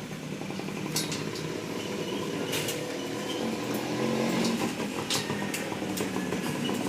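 A 200cc motorcycle engine idling steadily, slowly getting a little louder, with a few sharp metallic clicks.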